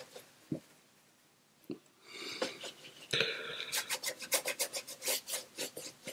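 A watercolour brush scrubbing in quick, repeated strokes, after two light taps in the first couple of seconds.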